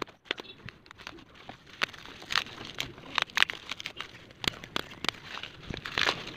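Plastic bubble wrap crinkling and crackling as hands pull it off and unwrap a parcel, in an uneven run of short, sharp crackles.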